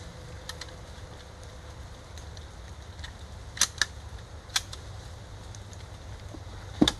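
Keystone Crickett single-shot .22 LR rifle being handled: a few sharp metallic clicks of its bolt action through the middle, then one louder shot just before the end.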